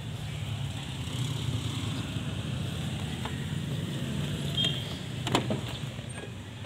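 Mitsubishi Canter's 2.8-litre 4M40 four-cylinder diesel idling steadily. About five seconds in, the cab door latch clicks as the door is pulled open.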